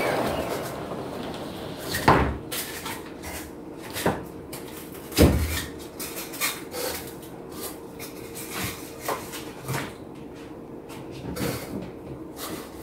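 Irregular knocks and clunks of hand work at wooden kitchen cabinetry, the two loudest about two seconds and five seconds in, with smaller clicks between them over a faint steady hum.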